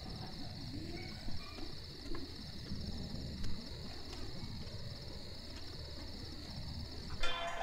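Crickets chirring steadily in a night-time outdoor ambience, a continuous high pulsing trill over a low background rumble. Music comes in just before the end.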